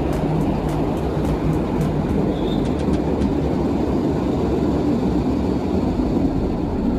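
Metro train running along the track: a steady, dense rumble with a quick run of wheel clicks in the first second and a few more about three seconds in.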